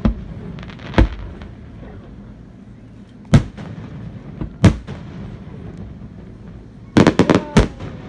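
Fireworks shells bursting: single sharp bangs every second or two, then a quick run of four or five cracks near the end.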